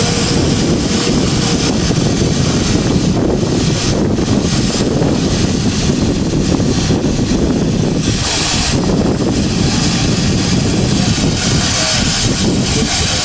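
GWR steam locomotive standing at rest, giving off a steady loud roar of escaping steam, with a brighter hiss swelling briefly about eight seconds in.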